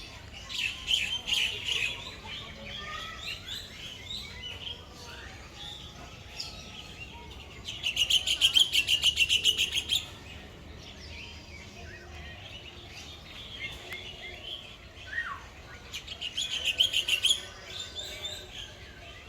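Many birds chirping and calling together. Twice, one bird gives a loud, fast run of repeated notes, about ten a second: once for about two seconds near the middle, and again more briefly near the end.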